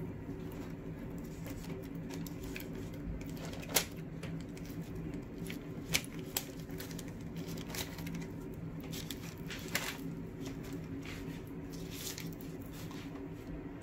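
Hands rubbing an oily spice paste into whole sea bass on baking paper: soft, wet squishing and pattering, with three sharp ticks about 4, 6 and 10 seconds in, over a steady low hum.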